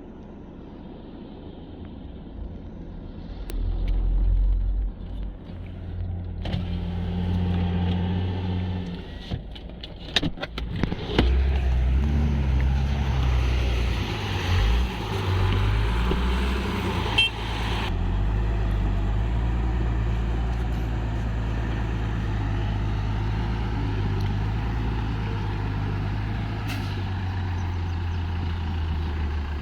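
Heavy diesel engine of earth-moving machinery running, its revs rising and falling as it works. There is a cluster of knocks partway through, then a steady run.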